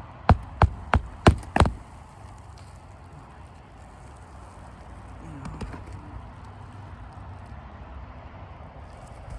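Hammer driving a roofing nail into an asphalt shingle: four sharp blows in quick succession in the first two seconds, then only a low background rumble.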